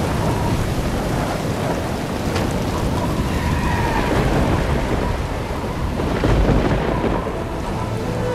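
Heavy rain in a thunderstorm, with a low rumble of thunder swelling about six seconds in.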